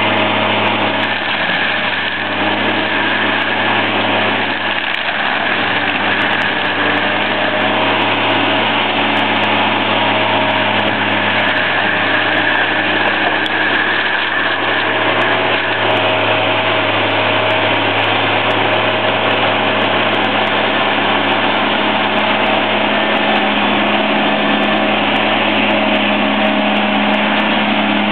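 Tigercat M760 mulcher's Caterpillar C-13 diesel engine running steadily under load while its FAE drum mulching head spins and grinds juniper brush. A constant drone carries a steady high whine above it.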